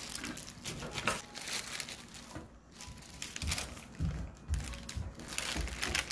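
Irregular crinkling and rustling as something is handled, with a few dull low knocks about midway.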